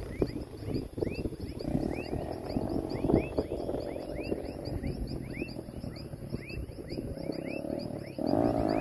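Small motorcycle engine running as it rides through mud, getting louder about eight seconds in as it comes closer. Underneath, frogs call with short rising chirps about twice a second.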